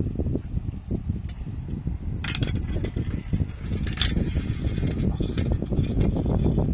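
Marbles rolling down a marble run track: a steady rattling rumble made of many fast ticks, with sharp clinks of marbles knocking together, the loudest about two and four seconds in.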